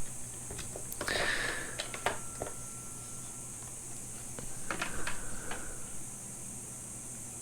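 Light clicks and short scraping rustles of plastic trim pieces being worked loose and pulled out of a steering wheel, a few separate handling noises, with a scrape about a second in and another around five seconds in.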